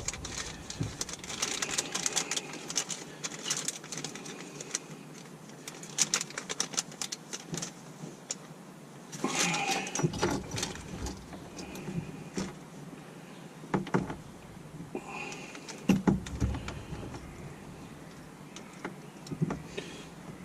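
Scattered light clicks, knocks and rustles of small parts and tools being handled, with a few short bursts of rustling.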